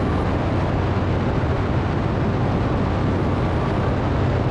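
Harley-Davidson V-twin motorcycle engine running steadily at cruising speed, under a constant rush of wind and road noise.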